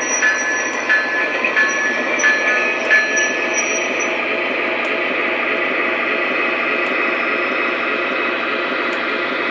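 Model diesel train rolling past on its track: a steady, fast clatter of wheels and motors. Over the first few seconds a ringing ding repeats about twice a second, then stops.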